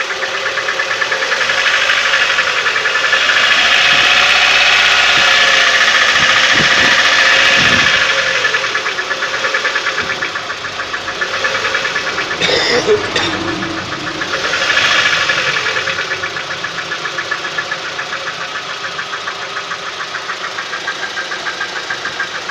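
Engine running with a fast, even knocking of unknown cause. It gets louder for a few seconds early on and again about fifteen seconds in, with a short sharp clatter just before the second rise.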